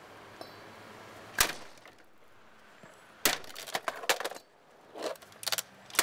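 Martec Rota Breeze box fan running with a steady motor hum, cut by a sharp hit about a second and a half in and another about three seconds in, then quick clattering clicks and rattles of its plastic breaking.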